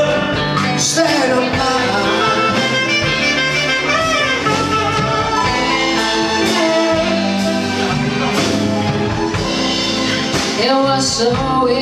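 Live band playing a slow jazz-blues ballad, a vocalist singing over drums, keyboards, guitar and saxophone.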